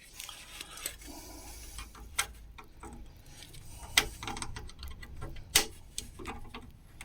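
Small irregular clicks and taps of hands working inside an old desktop PC as the motherboard's coin-cell backup battery is prised from its holder, with two sharper clicks about four and five and a half seconds in.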